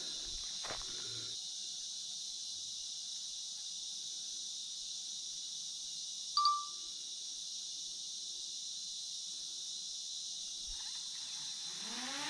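Steady high-pitched insect chorus, with a single short chirp about six seconds in.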